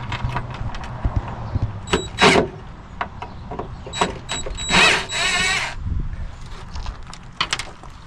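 Knocks and clunks of wooden boards and tools being handled while a shelf is fitted, with a short noisy burst about five seconds in.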